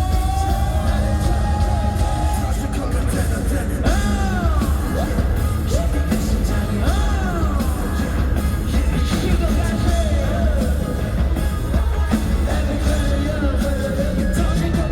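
Amplified K-pop song played loud, with strong bass and a singer's voice gliding up and down over it.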